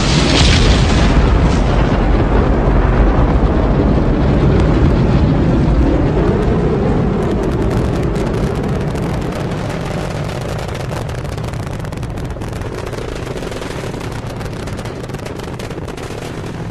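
Rocket launch: a loud, dense low rumble of rocket exhaust that slowly fades as the rocket climbs, turning into a rapid ragged crackling from about seven seconds in.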